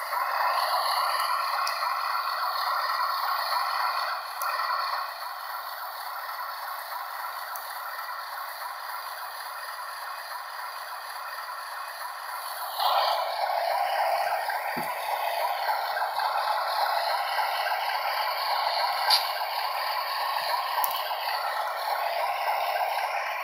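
Model BNSF diesel locomotives running on a layout's track, a steady rattling run of wheels and motors. It is louder for the first few seconds, quieter through the middle, and louder again from about halfway as the train comes back near, with a few small clicks.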